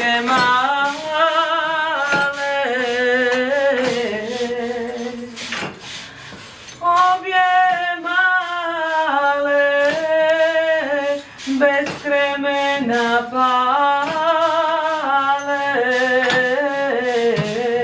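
A solo voice singing a slow, ornamented melody in long phrases with heavy vibrato, over scattered percussion strikes.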